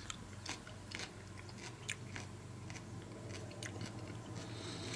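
A person chewing a mouthful of raw Bishop's crown pepper (Capsicum baccatum) with the mouth closed: faint, scattered soft crunches and wet mouth clicks.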